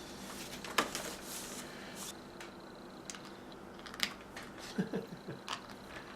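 Faint, sharp clicks and taps of plastic LEGO pieces being handled and pressed together, a few single clicks spaced about a second apart and a small cluster near the end.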